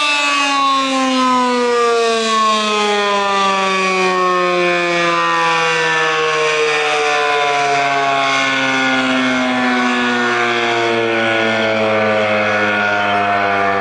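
ACA P15 fire siren sounding loud and steady, its stacked tones falling slowly in pitch throughout.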